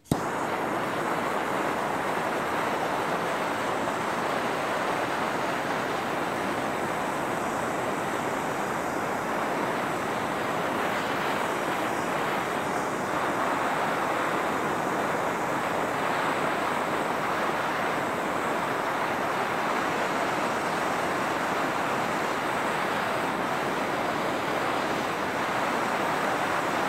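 Handheld propane torch burning with a steady hiss, its flame played on sodium on sand to get the reaction started. The hiss cuts in abruptly at the start and holds level throughout.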